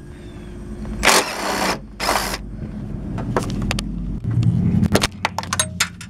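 DeWalt cordless impact driver loosening the headlight-assembly bolts: two short hammering bursts, then a brief lower run about four seconds in, followed by a scatter of clicks and rattles as the socket and bolt are handled.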